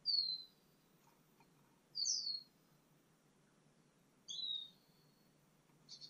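Sparrow calling at its nest: three high, downslurred chirps about two seconds apart, then a quick run of short chirps near the end.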